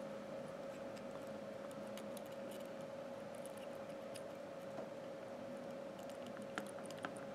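Faint light ticks and scrapes of thin Kanthal coil leads being slid through the terminal post holes of a rebuildable dripping atomizer deck, with two slightly sharper clicks near the end, over a steady faint hum.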